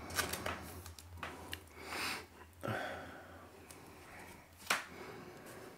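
Faint rustling, sliding and light taps of baseball trading cards being handled and sorted on a tabletop, with a few short swishes, over a low steady hum.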